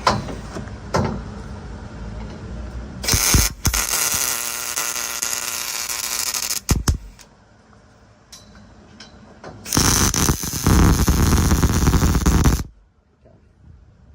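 Arc welder tack-welding steel roll cage tubing: bursts of crackling arc, a shorter one about three seconds in and a loud, steady one of about three seconds near the end that cuts off sharply.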